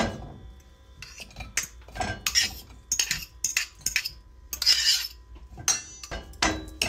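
A stainless steel mixing bowl set down with a ringing clank, then a metal fork scraping and tapping mashed potato out of a ceramic bowl into it: repeated clinks and scrapes of metal on ceramic and steel.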